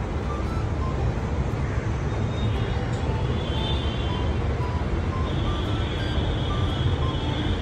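Steady low rumble of outdoor background noise, with a faint high whine that comes in about two seconds in and again from about five seconds.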